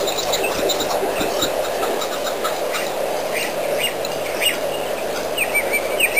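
Outdoor ambience picked up by a wildlife webcam microphone: a steady hum with small birds chirping over it in short high calls, and a wavering, warbling call near the end.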